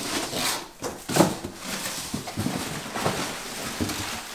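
Packing material rustling and crinkling as it is pulled out of a cardboard parts box: honeycomb kraft-paper wrap, then the plastic bag around a new motorcycle headlight, in irregular scrunching handfuls.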